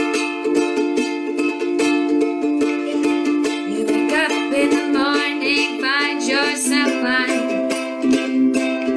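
Ukulele strummed in a steady rhythm, ringing chords with no sung words. About halfway through, a high wordless voice comes in briefly over the strumming.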